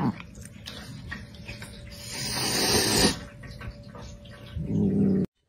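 Cat making a breathy, hiss-like sound that builds over about a second and cuts off, then a brief low vocal sound near the end.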